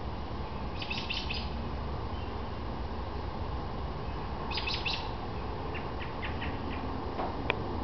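Small birds chirping in two quick bursts of rapid, high notes, about a second in and again around five seconds, then a few scattered single chirps and a sharp click near the end, over a steady low background rumble.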